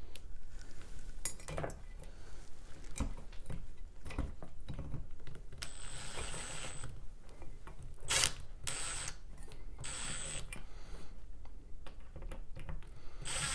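Screws of a ceiling fan mounting bracket being tightened into a junction box with a tool: several short bursts of driving, with clicks and knocks of hardware in between.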